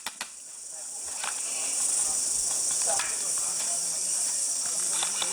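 Insect chorus, typical of summer cicadas: a loud, steady high-pitched shrill drone that swells up over the first second or so and then holds.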